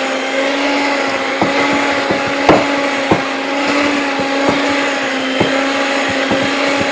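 Electric hand mixer running steadily, its beaters beating cake batter in a stainless steel bowl. Irregular clicks and knocks sound over it as the beaters and a spatula strike the bowl, the loudest about two and a half seconds in.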